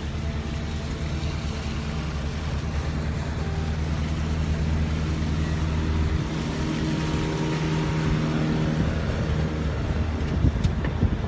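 A sailboat's inboard diesel engine running steadily as the boat motors slowly, with water washing along the hull. Some of the engine tones drop out about six seconds in.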